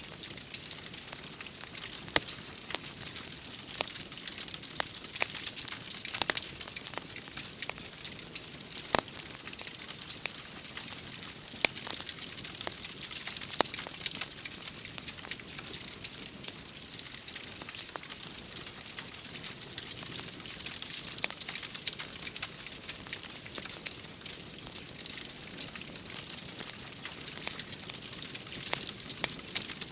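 Wood fire crackling, with frequent irregular sharp pops, over a steady hiss of rain.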